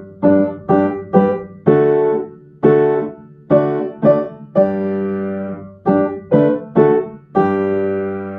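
Upright piano played with both hands: a hymn in G major in three-four time, in a simple four-part arrangement of block chords at a moderate tempo. About a dozen chords are struck, some held, and the phrase ends on a long sustained chord near the end.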